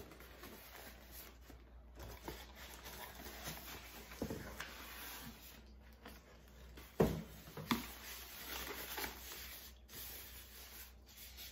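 A cardboard shipping box and a styrofoam cooler being handled: the cardboard is pulled off the cooler and the styrofoam lid is lifted. Rustling and rubbing throughout, with a sharp knock about seven seconds in.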